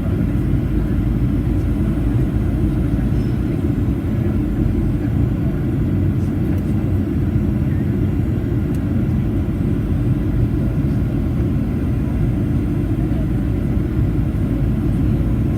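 Steady low rumble of engine and airflow noise heard inside the passenger cabin of a Boeing 737-800.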